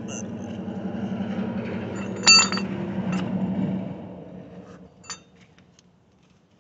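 Two sharp, ringing metallic clinks, a loud one a little over two seconds in and a softer one about five seconds in, like metal struck or set down. Under them a low steady hum swells and then fades away.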